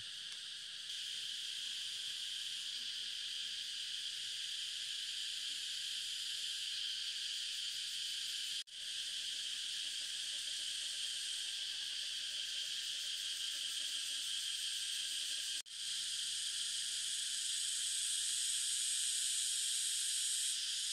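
A steady chorus of forest insects, a continuous high-pitched drone. It cuts out briefly twice and resumes.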